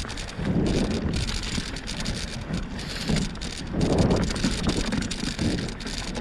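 Bicycle tyres rolling and crunching over a dirt trail in uneven surges, with wind buffeting the microphone.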